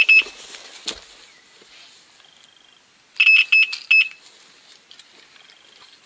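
Electronic carp bite alarm giving rapid high-pitched beeps in two bursts, one at the start and a longer one about three seconds in: a run, a carp taking line. There is a single knock about a second in.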